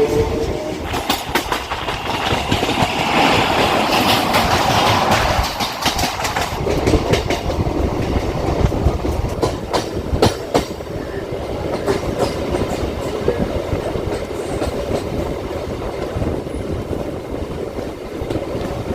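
Suburban electric local train running along the track: a steady rushing rumble with irregular clacks of the wheels over rail joints.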